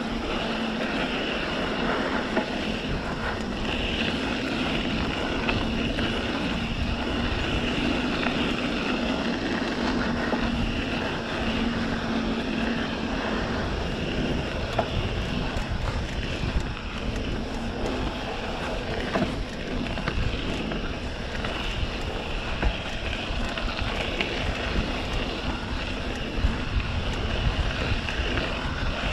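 Wind rushing over a helmet- or body-mounted camera's microphone as a mountain bike rolls down a dirt trail: a steady rumble of tyres on the ground, with a few sharp knocks from bumps in the second half.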